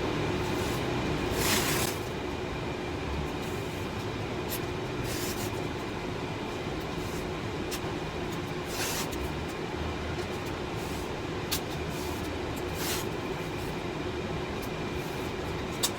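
Masking tape being pulled off the roll onto the back of a canvas: short tearing rasps come about every three to four seconds over a steady background hum.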